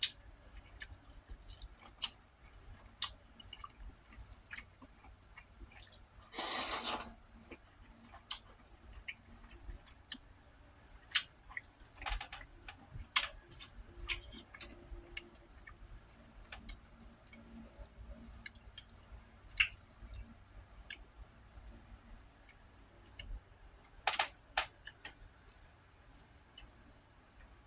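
Close-up eating sounds of a person chewing fried egg: scattered wet mouth clicks and smacks, with a louder rushing noise lasting under a second about six and a half seconds in and further louder bursts of clicks around the middle and near the end.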